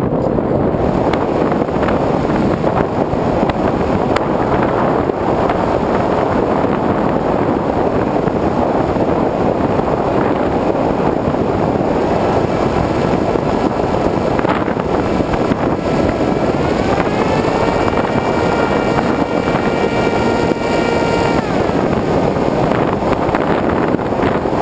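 Steady wind rush on the onboard camera microphone of a Multiplex Easystar RC glider in flight. About halfway through, the whine of its 2000KV brushless motor and 6x4 pusher prop comes in, rises in pitch as the throttle is opened, holds, then drops and fades away near the end.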